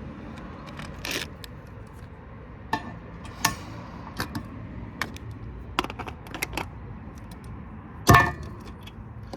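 Scattered clicks, clinks and light knocks of metal parts and tools being handled while a power supply is taken apart, with one heavier knock about eight seconds in.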